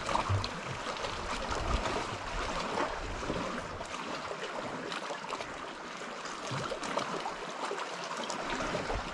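Small sea waves lapping and trickling against the rocks at the water's edge, a steady watery wash with faint scattered splashes. A low rumble sits under it for the first few seconds and then drops away.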